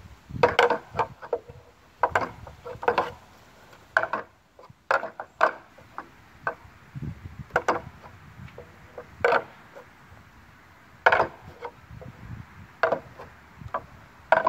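Hand-held rings and the wooden pegs of a rig obstacle knocking together as a climber swings along it, peg to peg. About a dozen sharp, irregular clacks, often a second or more apart.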